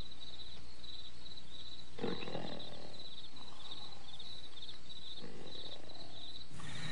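Crickets chirping steadily in a night ambience, about three chirps a second, with two soft low rushing sounds about two and five seconds in.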